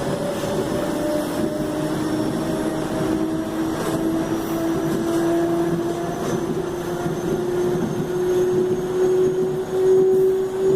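Traction motors of a CPTM Série 1700 (Mafersa/Hitachi) electric multiple unit whining, the pitch rising slowly and steadily as the train gathers speed, over the rumble of the running train.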